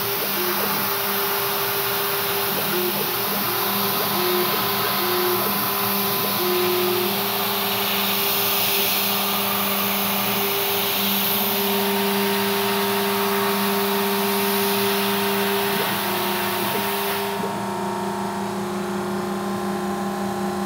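CNC milling machine cutting an aluminium bar: the spindle and end mill run with a steady hum while two compressed-air nozzles aimed at the cutter hiss. The hiss cuts off abruptly near the end as the cut finishes, leaving the machine's hum.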